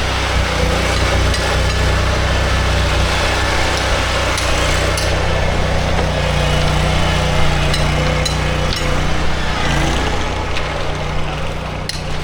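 An engine running steadily at a constant pitch, with a few short metallic clinks over it.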